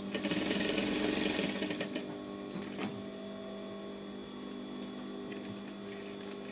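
Industrial sewing machine stitching fabric for about the first two seconds, then the stitching stops and a steady motor hum carries on.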